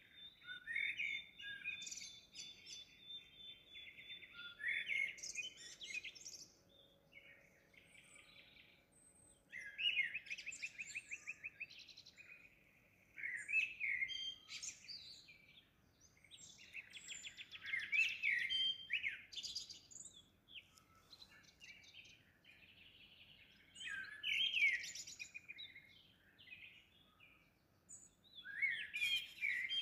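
A songbird singing short, high phrases every few seconds, some of them ending in fast trills.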